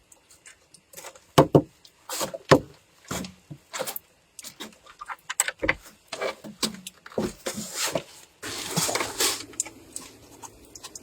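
Irregular knocks, clicks and clatter of things being handled, with a short rustling burst about nine seconds in.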